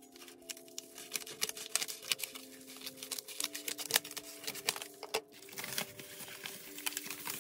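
Scissors snipping along the edge of a padded paper mailer in a quick string of cuts, then the envelope rustling and crinkling as it is lifted and handled, about five seconds in.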